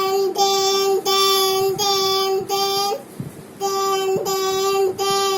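Young child's voice holding a string of sung "aah" notes, all at nearly the same pitch, with a brief pause about three seconds in.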